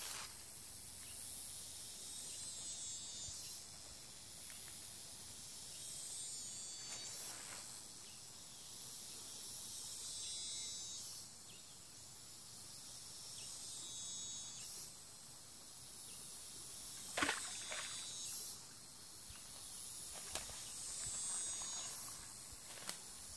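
High-pitched insect chorus buzzing steadily and swelling louder and softer every few seconds. A few brief rustles and knocks from feet and a stick pushing through leafy undergrowth, the sharpest about 17 seconds in.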